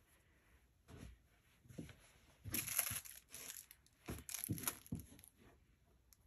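Rustling and crinkling of a cloth T-shirt and a plastic-wrapped item being handled and moved on a table, in several short bursts, loudest about two and a half seconds in.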